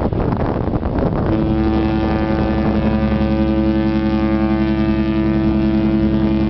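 The AIDAaura cruise ship's horn sounding one long, steady blast that comes in fully about a second in and stops abruptly at the end.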